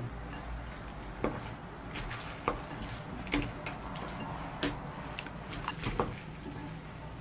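Chopsticks mixing sauced noodles and vegetables in a glass bowl: soft wet squishing, with about half a dozen sharp clinks of the chopsticks against the glass, roughly a second apart.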